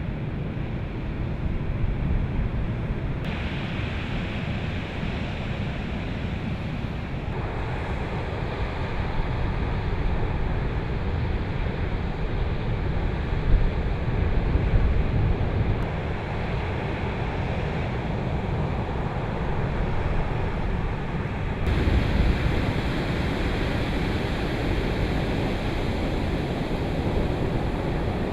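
Waves of a rough sea breaking steadily against the coast, with wind buffeting the microphone.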